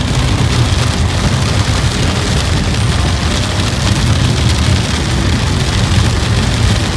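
Heavy rain pelting a moving car, heard as a steady hiss over the car's low, even road rumble.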